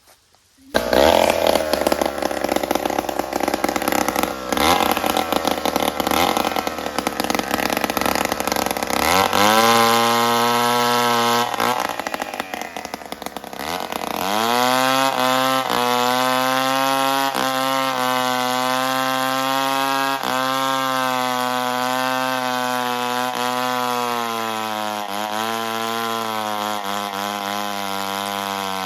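Chainsaw engine running, starting loudly about a second in. Its pitch climbs near the middle and falls away, then holds high and steady with brief dips, the way a saw does while cutting through wood.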